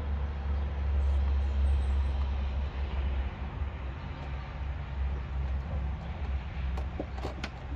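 An engine running with a steady low rumble that eases slightly about three seconds in, with a few sharp clicks near the end.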